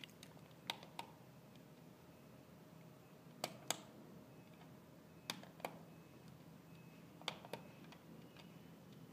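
Buttons on a small plastic remote control clicking, each press heard as a pair of sharp clicks, four pairs about two seconds apart, over a faint steady hum.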